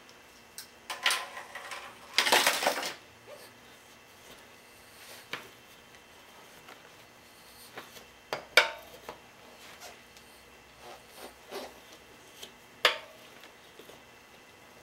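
Steel tyre irons clinking against a spoked motorcycle wheel rim and rubbing on the tyre as the bead is pried to break it loose, with a longer scraping rush about two seconds in and sharp clinks a little past eight and about thirteen seconds in.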